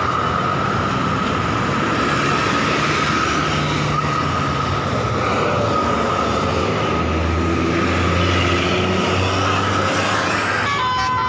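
Bus passing with steady, loud engine and road noise and a thin steady whine. Just before the end, a multi-tone telolet horn starts playing its stepped notes.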